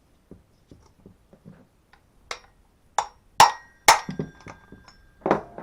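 A hammer striking a socket sat on the loosened flywheel nut of a Stihl MS170/180 chainsaw, to shock the flywheel off the crankshaft taper. There are about five sharp metal blows from about two seconds in. The two loudest come about three and a half seconds in and ring metallically.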